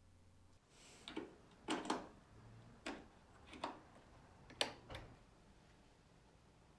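About seven light clicks and knocks, spaced irregularly over a few seconds, from handling the reassembled synthesizer.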